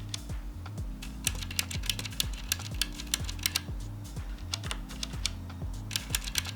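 Typing on the Sharkoon Skiller Mech SKG3 mechanical keyboard with Kailh Red linear switches: a quick, irregular run of key clicks and bottoming-out clacks, over quiet background music.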